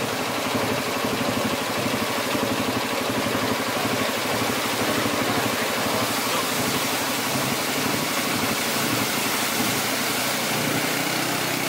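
ATV (quad bike) engine running steadily, with a continuous hiss over the engine note.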